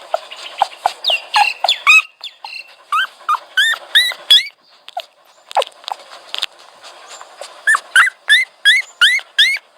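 Dog whining: a rapid series of short, high-pitched whimpers, each rising and falling, several a second. They thin out for a few seconds in the middle and then start again in quick succession.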